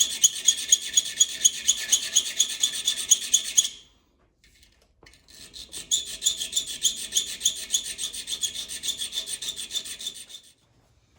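Hand file rasping back and forth on a small metal package-opener blade in quick, even strokes, about five a second, in two bouts with a pause of about two seconds between. The blade is being filed down to fit a multi-tool's T-shank adapter.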